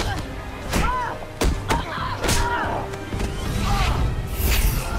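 TV drama soundtrack: a tense music score over a deep rumble, broken by several sharp hits and thuds, with short pitched cries or notes between them.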